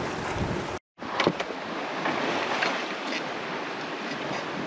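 Wind noise on the microphone and sea water splashing along a sailboat's hull, broken by a moment of silence about a second in.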